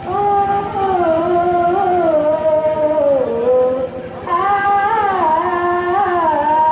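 A group of girls singing a song together in unison, with long held notes that glide between pitches and a short break for breath about four seconds in.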